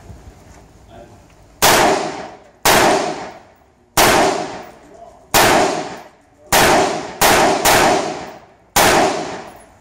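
Rifle shots from an AR-style rifle: eight single shots about a second apart, coming quicker toward the end with two close together, each trailing off in a long echo.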